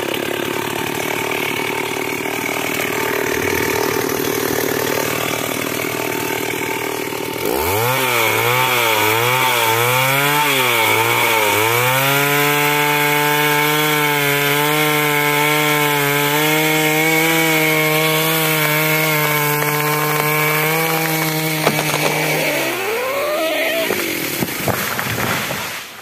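Stihl chainsaw running at part throttle, then about a third of the way in revving up with a wavering pitch as it bites into a tree trunk and holding steady high revs through a felling back cut. Near the end the pitch drops, rises briefly and the saw cuts off.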